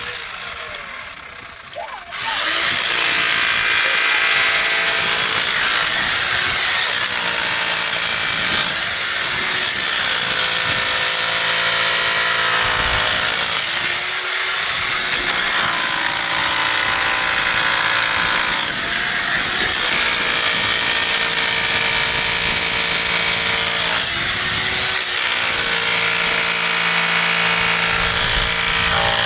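Electric power tool, such as a drill, starting up about two seconds in and running continuously. Its pitch dips briefly every few seconds as it is loaded.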